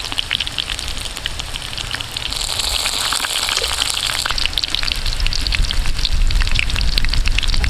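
Oil sizzling and crackling as breadcrumb-coated balut duck eggs deep-fry in a wok, a dense patter of tiny pops that grows gradually louder.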